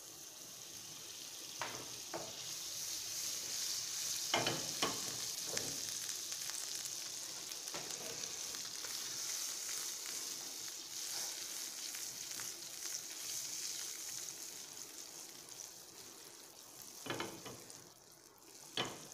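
Butter melting and sizzling in a hot non-stick frying pan: a steady high hiss that builds over the first few seconds and eases near the end, with a few light knocks.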